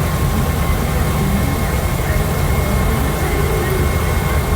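Combine harvester running steadily while harvesting wheat: a heavy, even engine drone with thin steady high tones over it.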